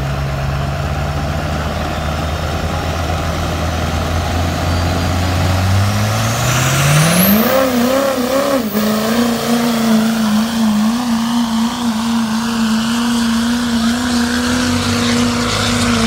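Diesel pickup truck pulling a weight-transfer sled: the engine runs at a low, steady pitch for about six seconds, then revs up hard with a high whistle sweeping up alongside it, and stays at high revs, wavering slightly, through the pull.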